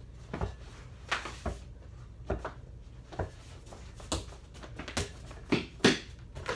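Basketball dribbled on a hard indoor floor, bouncing as a series of sharp knocks about a second apart, mixed with footsteps. The loudest knock comes near the end.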